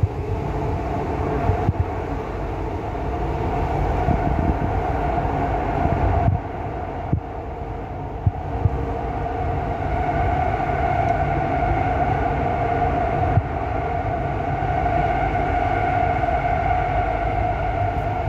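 Dubai Metro train running through a tunnel, heard from inside the car: a steady low rumble with a steady whine over it that grows stronger about halfway through, and a few short knocks.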